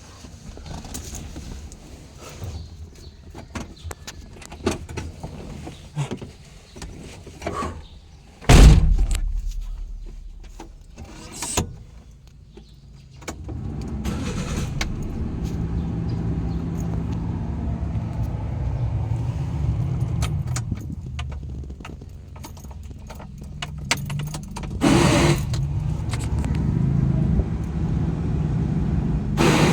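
A car-like vehicle: small clicks and rattles, then one loud, heavy thump about a third of the way in, like a car door shutting. From about halfway, an engine runs steadily, with a few louder knocks or rattles over it.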